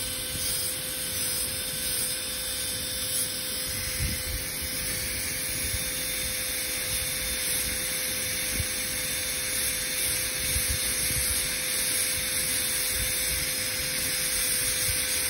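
High-speed dental air-turbine handpiece running with a chamfer diamond bur, grinding a typodont tooth, heard as a steady high-pitched hiss.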